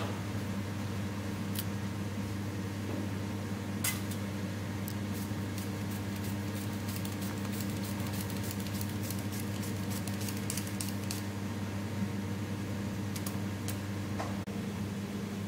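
Cucumber being sliced on a handheld plastic mandoline slicer: a quick run of light clicking strokes from about four seconds in until about eleven seconds, and a few more near the end. Under it runs a steady low machine hum.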